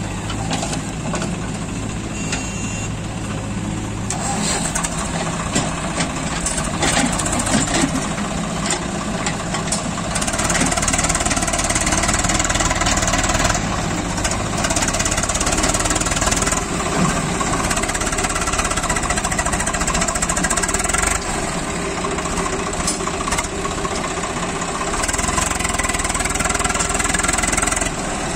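Diesel engines running: a Swaraj 744 FE tractor's three-cylinder diesel together with a backhoe loader's engine. The engine sound grows louder about four seconds in and again about ten seconds in, then rises and falls, as under changing load and throttle.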